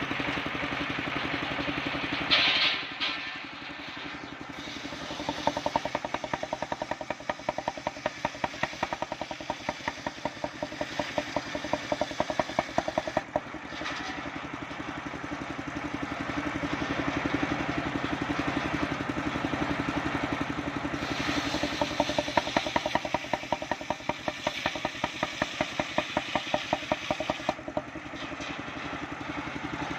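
Engine-driven mobile circular sawmill running steadily while cutting waru wood into battens. It has a sharp burst about two seconds in and two long stretches of rhythmic pulsing.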